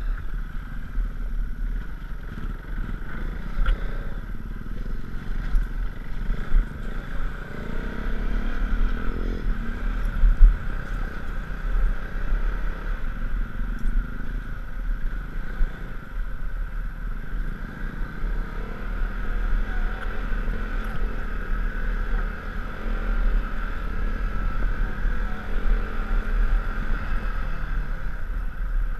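A KTM 390 Duke's single-cylinder engine running steadily while the bike is ridden on a bumpy dirt road, heard from the rider's helmet, with heavy low rumble and irregular knocks and rattles from the rough surface, the loudest about ten seconds in.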